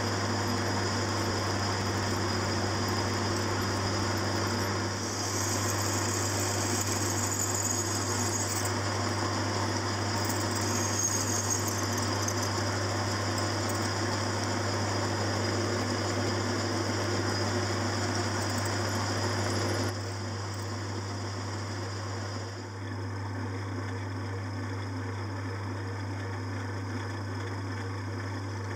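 Metal lathe running, with a twist drill fed into the centre of a spinning flywheel blank: a steady motor hum with cutting and machine noise over it. About twenty seconds in, the sound steps slightly quieter and carries on steady.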